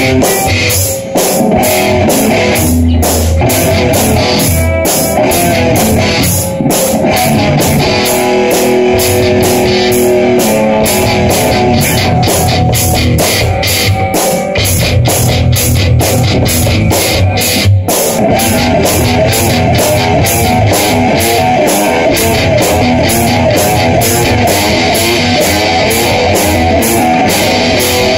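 Rock band jamming loudly: electric guitars played through amplifiers over a drum beat.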